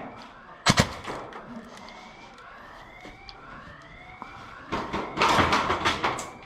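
Two quick airsoft gun shots about 0.7 s in. After them comes a faint, repeating rising wail like a siren, and a loud rustling, scuffing noise near the end.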